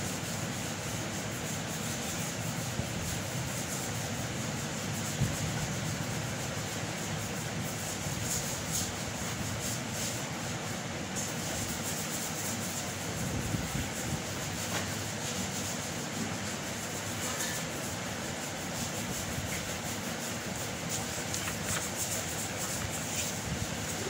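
Pencil rubbing and scratching on a paper pad as a drawing is sketched, over a steady background noise, with one short tap about five seconds in.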